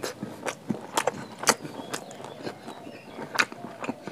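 Close-up eating sounds: chewing, with several sharp crunches.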